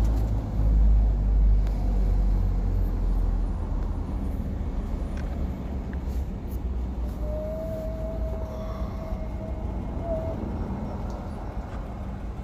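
A motor vehicle engine running, a steady low rumble that is louder for the first two seconds and then eases.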